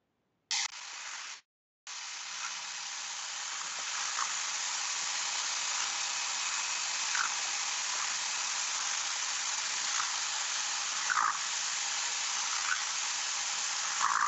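Water jet from a Karcher Follow Me 1800 PSI electric pressure washer's Dirtblaster rotary nozzle blasting a concrete paver: a steady spraying hiss. The sound drops out twice in the first two seconds, then runs on evenly.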